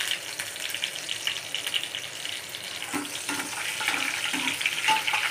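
Cumin seeds and whole spices sizzling and crackling in hot oil in a steel kadhai as a steel spatula stirs them, the tempering stage of jeera rice.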